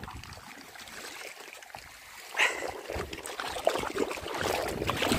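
Footsteps scuffing and crunching over a stony shore. They are faint at first, then louder and more frequent from about two and a half seconds in, with a sharp scrape at that point.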